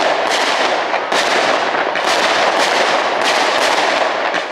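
Fireworks display: shells bursting in quick succession, about two bangs a second, each trailing off into the next with no quiet between them.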